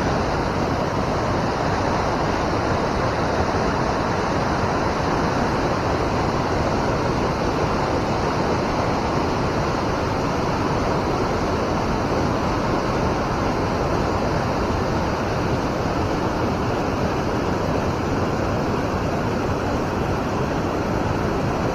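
Steady rushing of flowing river water, an even hiss with no splashes or breaks.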